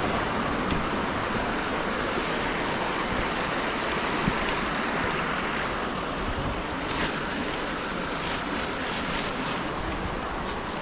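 Creek water rushing over rocks, a steady noise. From about seven seconds in, footsteps crunch and rustle through dry leaf litter.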